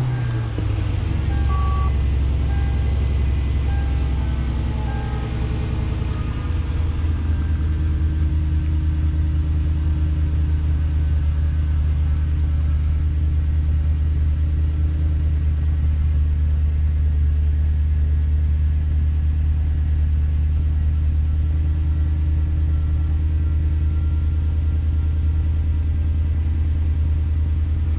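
Lexus GS400's 4.0-litre 1UZ-FE V8 idling steadily just after being started, heard from inside the car.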